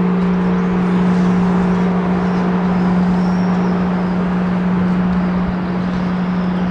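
A large church bell's low hum lingering after the last strike, one steady deep tone, its higher overtones fading away within the first few seconds, over a steady rushing background noise.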